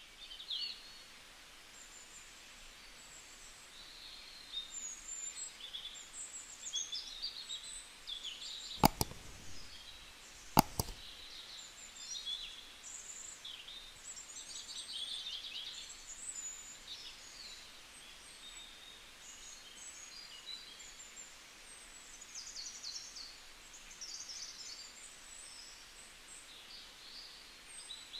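Small birds chirping and trilling on and off throughout over a faint hiss, with two sharp clicks about nine and ten and a half seconds in.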